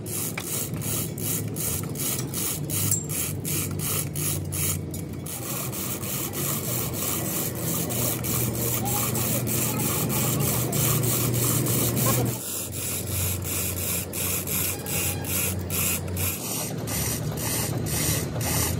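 A metalworking machine running with a steady low hum under a rapid, regular scraping of metal being cut or ground. The hum drops slightly in pitch about two-thirds of the way through.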